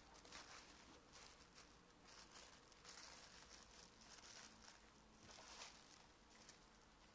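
Faint, irregular rustling and crinkling of a plastic sheet and canvas bag being handled as the sheet is pushed inside the bag.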